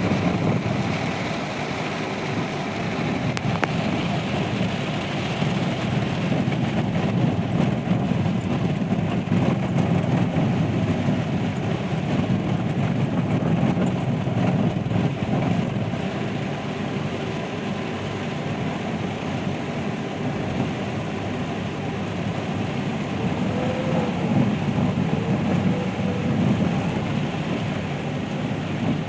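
Heavy rain falling steadily, a dense even rush.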